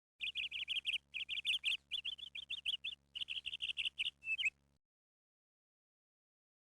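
A small bird chirping rapidly in four or five quick runs of high chirps, then cutting off suddenly.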